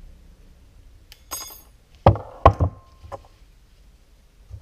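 Steel blades being handled and knocked on a wooden workbench: a short metallic rattle about a second in, then three sharp knocks close together and a lighter one, with a brief metallic ring.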